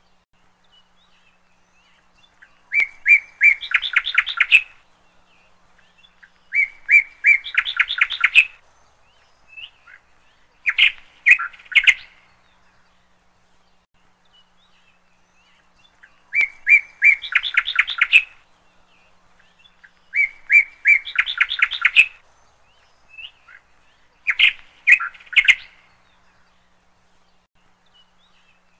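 A songbird singing: six similar phrases, each a few separate chirps running into a quick trill, repeated every four seconds or so with short pauses between.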